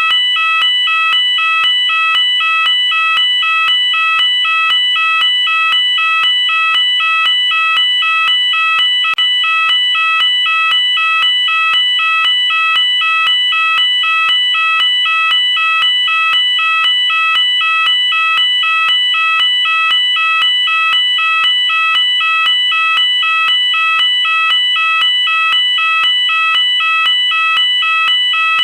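Electronic UK fire alarm sounder going off continuously, alternating between two tones in a steady, evenly repeating warble.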